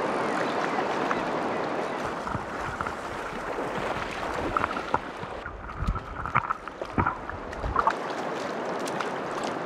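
Running river water with wind rumbling on the microphone. About halfway through, the sound changes, and a few low gusts and sharp knocks follow.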